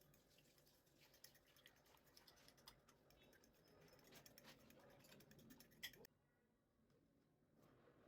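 Near silence: faint scattered small clicks and ticks, which cut off suddenly about six seconds in.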